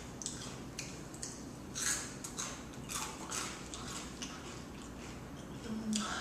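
Close-up chewing and mouth sounds of someone eating pizza: irregular wet clicks and smacks, with a short low hum near the end.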